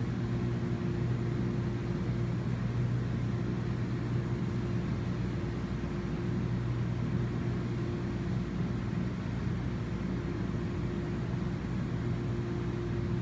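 Jetted whirlpool bathtub's jet pump running, a steady motor hum with the water churning through the jets.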